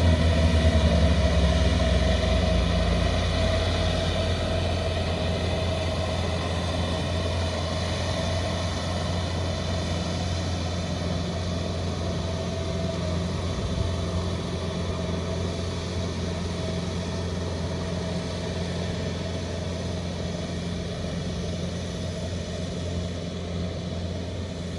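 Kubota combine harvester's diesel engine running steadily, slowly growing quieter over the first several seconds and then holding level.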